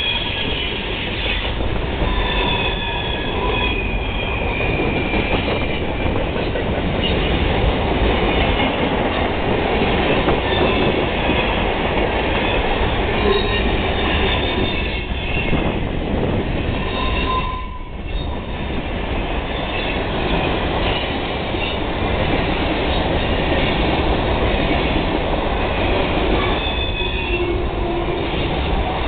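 Freight train passing close by, its cars rolling past with a steady rumble and high-pitched wheel squeals that come and go.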